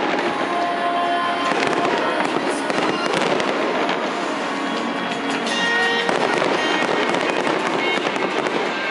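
Aerial fireworks bursting and crackling in a dense, continuous barrage of cracks and bangs.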